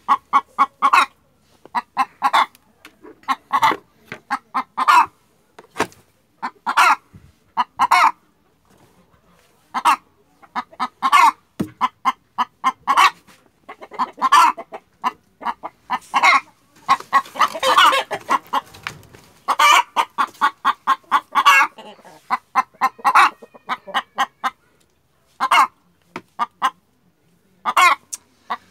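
Broody hen sitting on her nest, clucking in short, repeated, irregular bunches as a hand reaches under her for the eggs: the defensive clucking of a sitting hen that is pecking at the intruder. A harsher, noisier burst comes about two-thirds of the way through.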